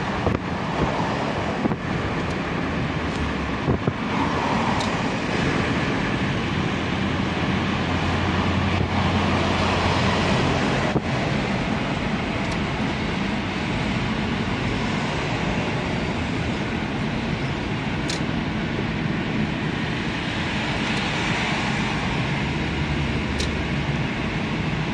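Steady road noise heard from inside a moving vehicle: tyre and engine rumble with wind rush. A low engine drone grows stronger for a few seconds around the middle.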